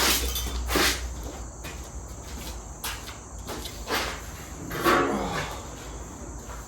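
Scattered knocks and clunks of tools and parts being handled and moved about in a garage workshop, one of them with a short squeaking scrape about five seconds in, over a steady high-pitched insect-like background.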